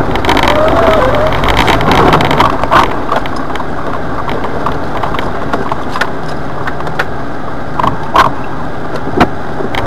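Jeep Wrangler driving slowly along a wet, muddy gravel trail, heard from inside the cab: a steady running rumble and tyre noise, broken by sharp knocks and rattles. The loudest knocks come about three seconds in, about eight seconds in and just after nine.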